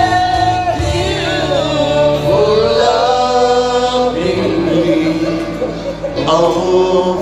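A man singing into a handheld microphone over backing music, with long held notes that slide from pitch to pitch.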